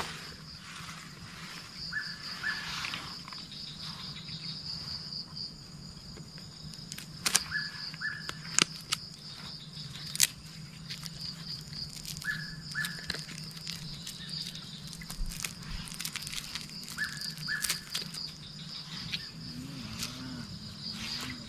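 Evening waterside nature sound: a steady high chorus of insects over a low steady hum. A short two-note call repeats about every five seconds, with scattered sharp clicks, and a low wavering sound starts near the end.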